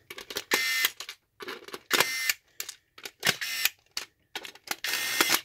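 Sumake electric torque screwdriver on its high-speed setting running screws into a plastic case: four short bursts of motor whine, one per screw, with sharp clicks as the clutch shuts off the power each time a screw reaches its set torque.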